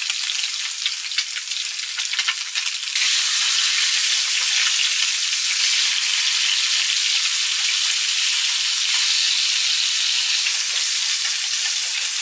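Fish fillets sizzling in hot oil in a frying pan on a portable butane stove. The sizzle crackles at first, then about three seconds in it turns louder and steadier.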